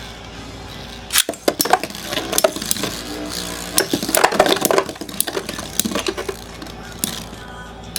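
Metal Beyblade spinning tops, Lightning L-Drago 100HF and Rock Leone 145WB, clashing in a stadium: a sharp hit about a second in, then a dense run of metallic clinks and knocks as they collide, thinning out near the end.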